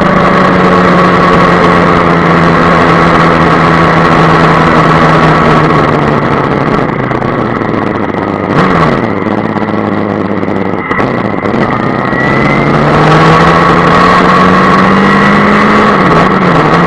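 Yamaha FZ6 S2's 600 cc inline-four engine running under way: the engine note eases down through the first half and sits low in the middle, then rises steadily as the bike accelerates, with a quick dip near the end at a gear change. A steady rush of wind noise runs underneath.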